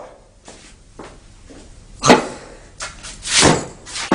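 Several knocks and thumps, with a sharp bang about two seconds in and a short rushing burst about a second later.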